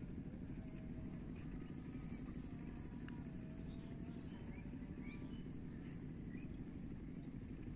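Steady low rumbling noise throughout, with faint short chirps of small birds above it.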